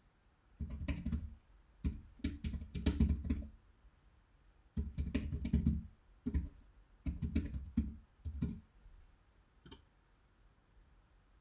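Typing on a computer keyboard: several quick runs of key clicks with short pauses between them, stopping about three-quarters of the way through, then one lone click near the end.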